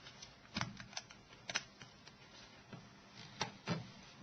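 Irregular sharp clicks and taps of small tools and plastic parts on a Nokia 6680 phone as its antenna's plastic clips are unlocked and the antenna is lifted off. There are about five louder clicks among fainter ones.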